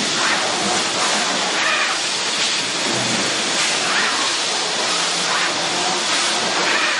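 Steady hissing machine noise from a running injection moulding machine and its take-out robot, with no clear rhythm or tone standing out.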